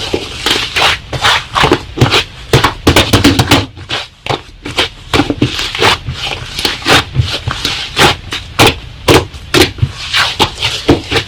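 Slime being squeezed and pressed by hand, making a busy, irregular run of sticky clicks and pops, with a short lull about four seconds in.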